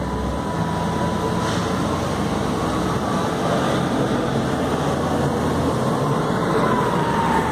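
Road traffic noise from cars and a van creeping past close by, engines running. A steady high whine runs through it and sinks a little in pitch near the end.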